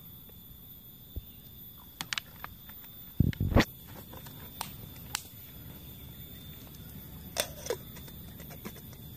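Handling noises: scattered light clicks, two dull low thumps about three seconds in (the loudest), and a short clink near the end as the small metal camping kettle is picked up by its lid.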